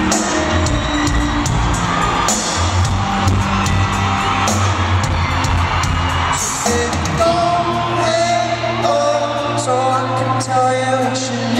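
Live pop band playing, with sung vocals over bass and drum beats, heard through the echo of a large arena.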